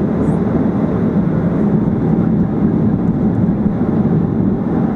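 Steady cabin roar inside a Boeing 737-800, the drone of its CFM56-7B engines and airflow past the fuselage, even and unbroken.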